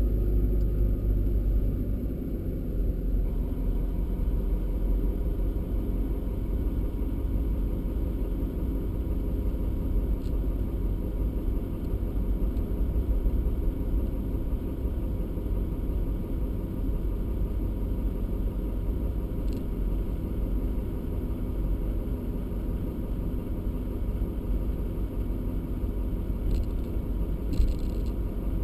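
Car driving slowly on a snow-covered road, heard from inside the cabin: a steady low rumble of engine and road noise. It is held back on engine braking, with no revving.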